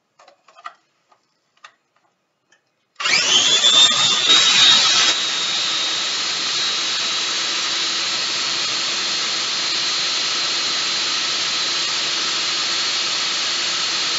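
A few light clicks, then an electric food processor's motor starts about three seconds in and rises quickly to a steady high whine as the blade chops tomatoes, onion and jalapeño for salsa. It is louder and rougher for the first two seconds, then runs evenly.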